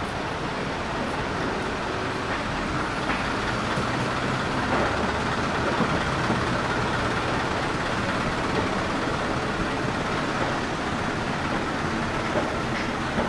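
City street traffic: steady vehicle noise with the low hum of a large vehicle running or passing.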